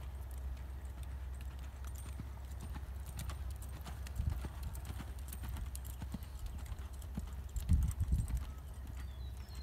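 Hoofbeats of a horse loping on soft arena dirt, dull repeated thuds with sand scattering, over a steady low rumble. The heaviest thuds come about four seconds in and again near eight seconds in.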